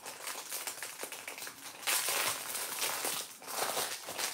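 Clear plastic packaging crinkling as a pair of markers is handled and unwrapped, loudest about two seconds in.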